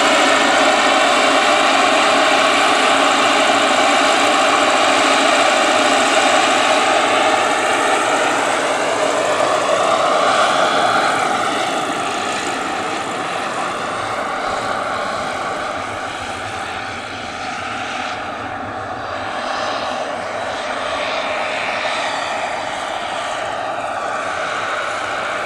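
Turbine-powered scale Bell 429 GlobalRanger model helicopter in flight: a steady turbine whine with its rotor. The pitch bends as it passes about ten seconds in, and the sound grows fainter as it moves off.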